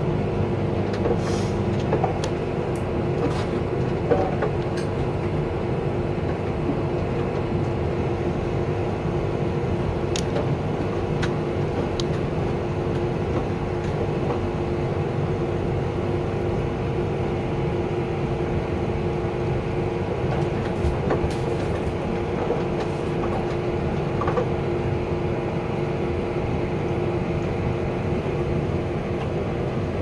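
Front-loading washing machines running mid-cycle with their drums turning: a steady motor hum with a couple of constant tones. A lower hum drops out about two seconds in, and a few faint clicks and knocks come through.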